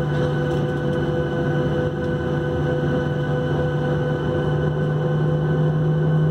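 Steady hum of a Boeing 737-800 on the ground during pushback, heard from inside the passenger cabin: a constant machine drone made of several held tones over a low rumble, growing slightly louder toward the end.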